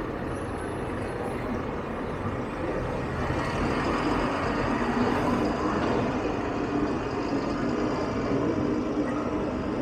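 City street traffic: a steady wash of passing vehicles and engine noise, swelling as a louder vehicle goes by around four to six seconds in, with a low engine hum carrying on afterwards.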